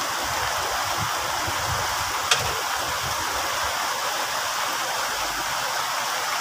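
Steady hiss of heavy rain falling, with one sharp click about two seconds in.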